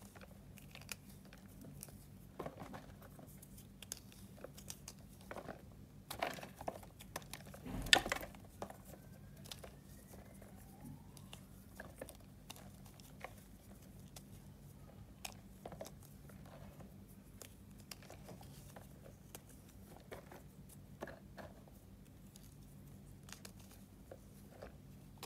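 Fingers crumbling and crushing dry chunks of reformed gym chalk: scattered soft crunches and crackles as pieces break and drop, with one louder crunch about eight seconds in.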